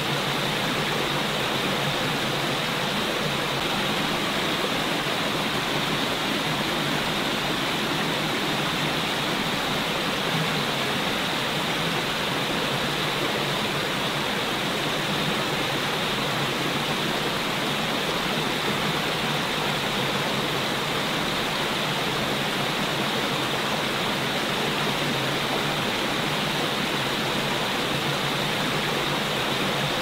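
Small stream rushing steadily over rocks in a shallow cascade, an even unbroken wash of water noise.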